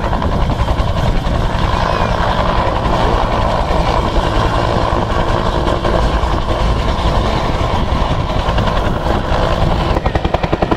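Bell UH-1 'Huey' helicopter flying low past with a steady turbine and rotor noise. Near the end, as it banks, the rotor turns into a distinct rapid blade-slap beat of about ten a second.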